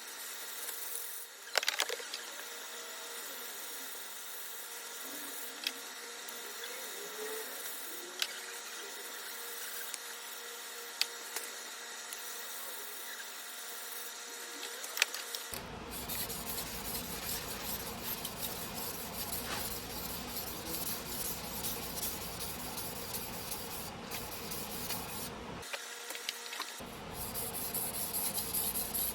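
A single-bevel sujihiki blade being rubbed back and forth on a whetstone: a steady gritty scraping that starts about halfway through, breaks off briefly near the end, and resumes. Before it, a few sharp clicks of handling.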